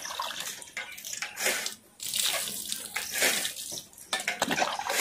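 Water splashing and streaming off a water buffalo's wet hide as it is washed by hand, in irregular splashes with a brief pause about two seconds in.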